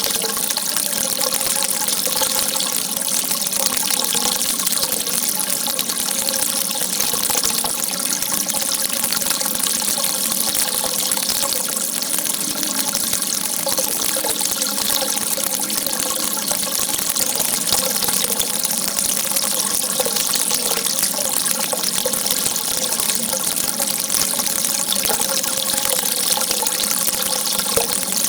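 Running water with a steady, unbroken hiss.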